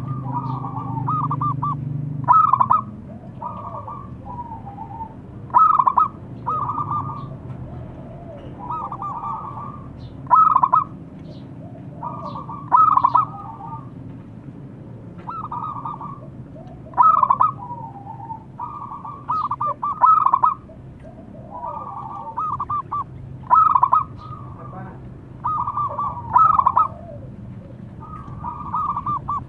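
Local zebra dove (perkutut) singing its cooing song: a phrase of soft coos with a loud, rapid trill, repeated about every three seconds.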